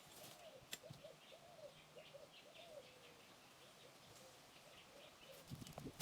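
Faint bird calls: a run of short notes that rise and fall, about two a second, trailing off about halfway through, with faint high chirps over them.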